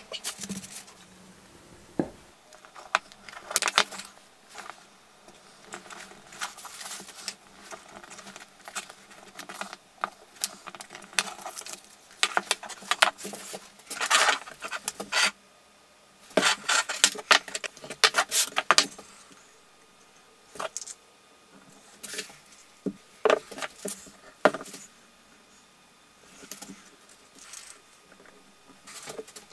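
Bench-work handling sounds in irregular bursts: masking tape crackling on small oak pieces, wooden parts knocked and set down on the workbench, and spring clamps clicking onto the assembled tripod legs near the end.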